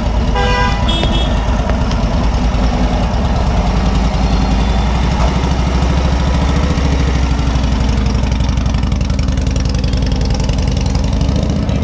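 Antique Harley-Davidson motorcycle's V-twin engine running loud and steady with a low, pulsing beat at idle, its firing picking up a little as the bike moves off.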